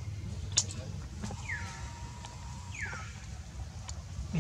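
Baby monkey giving two short high calls, each falling in pitch, with a sharp click about half a second in.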